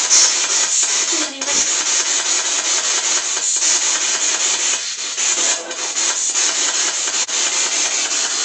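Loud static hiss from a hand-held spirit box, the radio-sweeping device used in ghost hunting, with several brief breaks as it sweeps.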